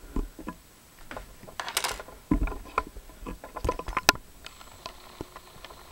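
Scattered clicks, taps and brief rustles of things being handled and shifted around, with a dull thump a little after two seconds in.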